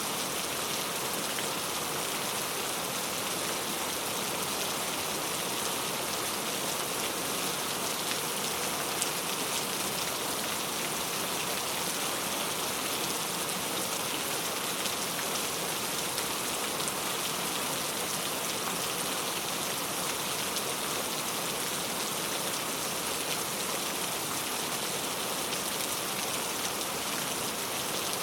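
Steady rain falling, an even hiss of many small drops pattering on a surface, without pause or change.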